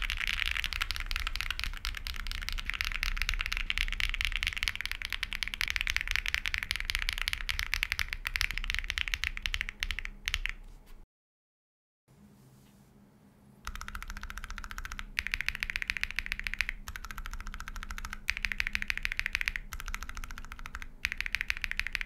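Fast typing on a Monka 6067 aluminium gasket-mount mechanical keyboard with Sillyworks Hyacinth V2U linear switches and PBT Cherry-profile keycaps: a dense run of keystrokes that stops about eleven seconds in. After a brief silence, the keys are pressed again in short runs with brief gaps between them.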